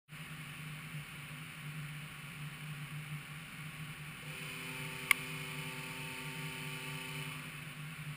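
A steady electrical hum from equipment in the test hall. A higher whine of several steady tones joins it for about three seconds in the middle, and there is a single sharp click about five seconds in.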